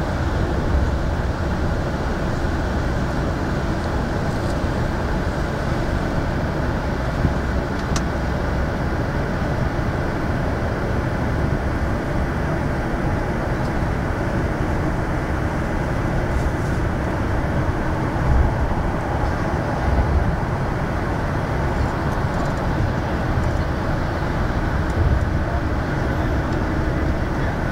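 Cabin of a bus travelling at motorway speed: a steady low rumble of engine and road noise, with a few brief heavier bumps in the second half.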